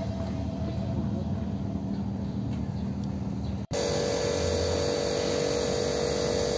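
Outdoor city background: a steady low rumble like distant traffic. It cuts out for an instant about three and a half seconds in, then continues with a steady hum.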